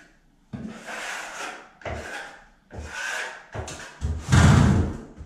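Marshalltown 12-inch trowel skimming joint compound down a drywall seam: about five scraping strokes, the last one loudest and deepest.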